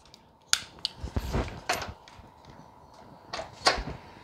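A string of light metallic clicks and knocks as an air impact wrench is handled and its socket set onto a mower deck spindle's pulley nut; the wrench is not yet running.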